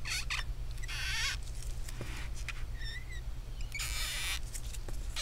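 Stretch-release adhesive strip being pulled out from under a laptop LCD panel with tweezers: a few short rasping bursts, with a brief squeak about three seconds in, over a steady low hum.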